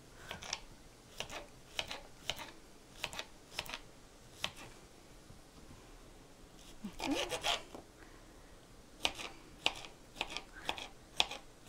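Kitchen knife slicing zucchini on a plastic cutting board: irregular sharp knocks of the blade striking the board, with a pause about halfway through.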